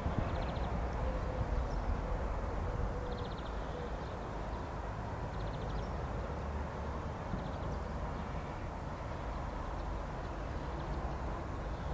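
Steady low outdoor background rumble, with faint short high trills from a small bird recurring every two to three seconds.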